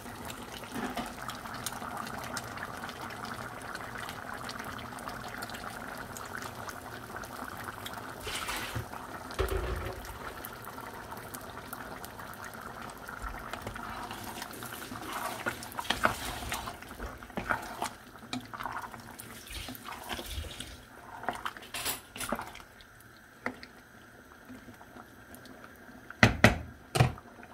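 Steady watery kitchen noise of liquid, with scattered light clicks. It dies down after about twenty seconds, and a couple of loud knocks come near the end.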